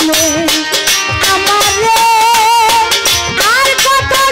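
A woman singing a Bengali baul folk song into a microphone, her voice wavering with vibrato, over live band accompaniment with steady drum strokes.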